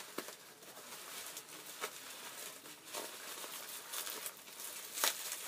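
Packaging rustling and crinkling as a wrapped parcel is cut open with scissors, with a few sharp clicks, the loudest about five seconds in.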